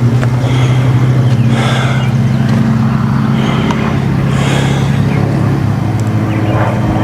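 An engine running steadily with an even low hum, with a few brief rustling noises over it.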